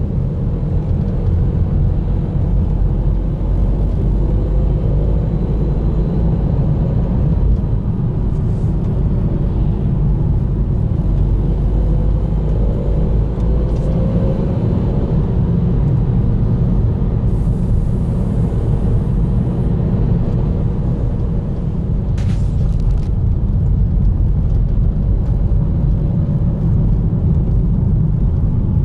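Steady low rumble of a car driving at town speed, heard from inside the cabin: road and engine noise, with the engine note rising a little a few times as the car picks up speed.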